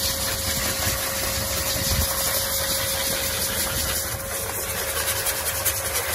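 High-velocity pet dryer running steadily, a loud rush of air from its hose nozzle over a motor whine held at one pitch, blowing the water out of a wet Samoyed's thick coat.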